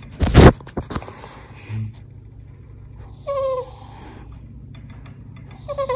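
A dog vocalizing in two short, falling whines or moans, one about three seconds in and another starting near the end and sliding lower. A loud, brief burst of noise comes just after the start.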